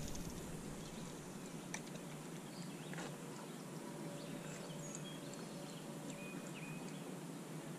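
Quiet open-water ambience: a faint steady hiss with a few soft clicks and some short, faint distant bird chirps.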